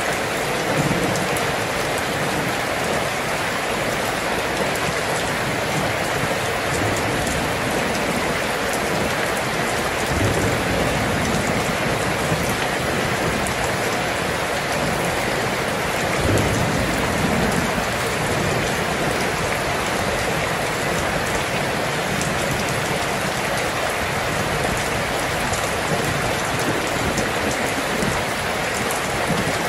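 Steady heavy rain falling, an even unbroken hiss, with a few brief low rumbles about a third of the way and halfway through.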